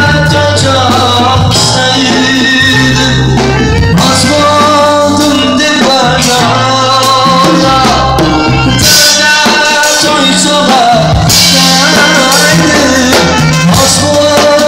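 Live band music: an alto saxophone playing a wavering melody over a drum kit with cymbals and a sustained low bass line.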